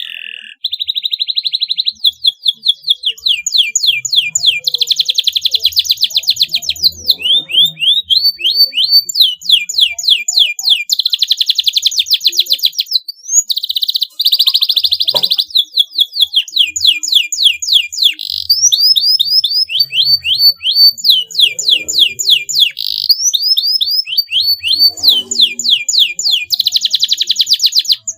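Domestic canary singing a long, continuous song. Fast runs of rising chirps alternate with dense trills and buzzy rolls, high-pitched, with only brief breaks between phrases.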